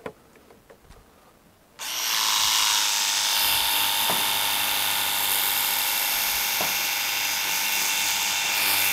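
A battery-powered 24V cordless pressure washer gun starts suddenly about two seconds in and then runs steadily: an electric pump motor whining over the hiss of the water jet.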